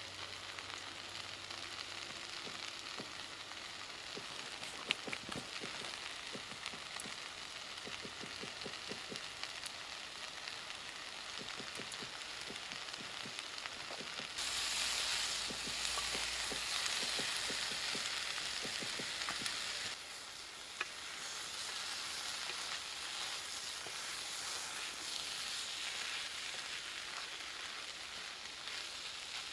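Potatoes and mushrooms sizzling in a frying pan over a Finnish candle log fire: a steady hiss with many small pops, louder for several seconds around the middle. Near the end a wooden spatula turns the food in the pan.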